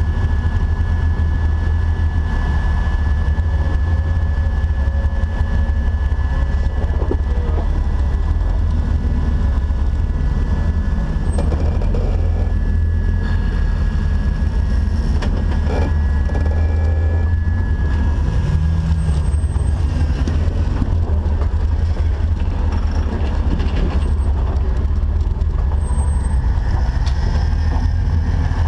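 Off-road Jeep's engine running steadily, a loud low rumble, with a faint steady high whine and a few light knocks over it.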